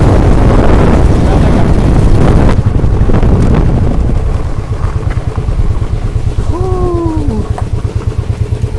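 Motorcycle running on the road with wind buffeting the microphone, loudest for the first couple of seconds, then quieter as the bike slows to a stop. A short falling tone cuts through near the end.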